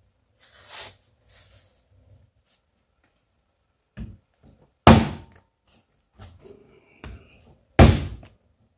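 Lump of wet clay being wedged on a wooden workbench: two heavy thuds about three seconds apart as it is slammed down, with softer knocks between.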